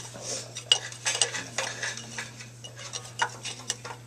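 Irregular light metal clicks and clinks from a micrometer being handled and set against a crankshaft journal inside the crankcase, over a steady low hum.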